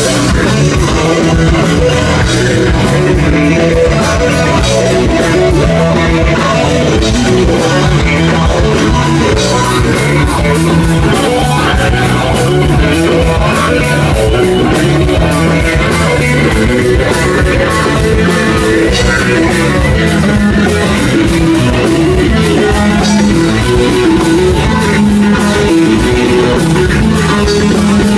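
Live rock band playing an instrumental passage with electric guitar, bass and drum kit, the cymbals growing louder about ten seconds in.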